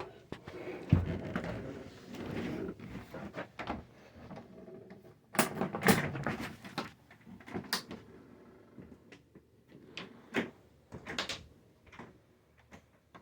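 Door hardware being handled: a string of separate clicks and knocks, with a low thump about a second in and the loudest knocks around six seconds in.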